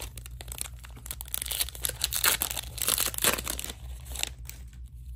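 Foil wrapper of an Upper Deck Series 2 hockey card pack crinkling and tearing as it is pulled from the box and ripped open. The crackle is loudest from about two to three and a half seconds in.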